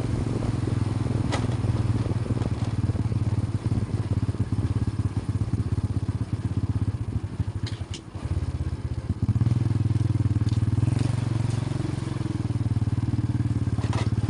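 Small motorcycle engine running as the bike rides along, heard from the passenger seat. The engine note eases off and breaks up around the middle, drops briefly about eight seconds in, then picks up again, steady and stronger.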